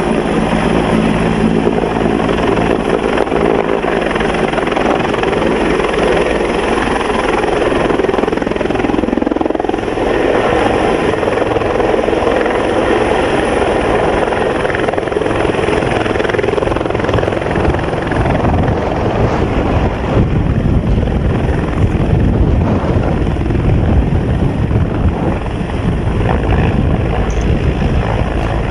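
Bell 412 helicopter hovering low and settling onto a helipad, its rotor and turbines running steadily. A deeper low rumble fills in through the second half as it comes down close to the ground.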